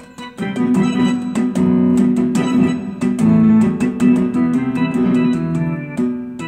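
Electronic keyboard played through a harmony-array key layout: quick runs of notes over held chords. The playing fades out near the end.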